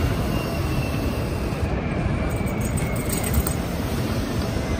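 Steady rumble of city street traffic, with a faint high whine that falls slightly in pitch over about three seconds.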